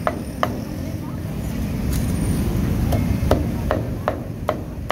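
Cleaver chopping roast duck on a chopping block: sharp knocks, a few spaced out at first, then about two or three a second in the second half.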